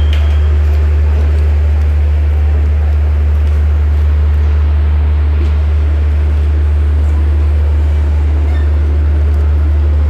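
Diesel train standing at the platform with its engine running: a loud, steady low drone with faint clatter above it.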